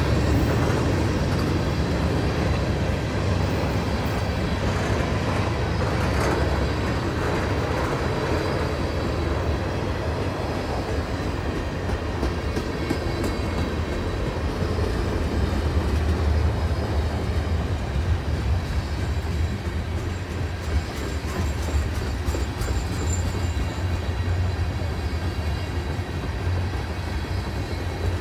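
A CN freight train's cars rolling past on the main line with a steady rumble of wheels on rail.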